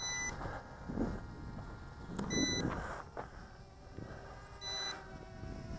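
Drone remote controller beeping during return-to-home: three short, high beeps at an even interval of about two and a half seconds, over faint background hiss.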